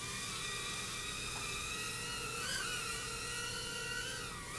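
FrSky Apus M60 micro drone's motors and propellers whining as it flies, a high whine that wavers in pitch with the throttle and dips briefly near the end.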